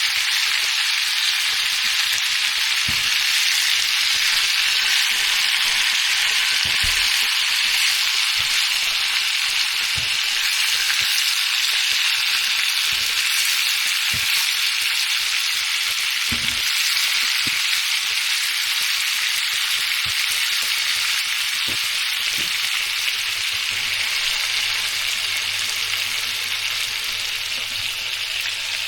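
Small chicken cutlets frying in hot oil in a pan, a steady, even sizzle throughout.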